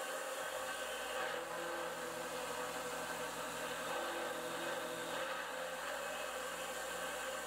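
Precision Matthews PM25MV CNC mill running steadily, a shell face mill cutting aluminium: a whir made of several steady tones.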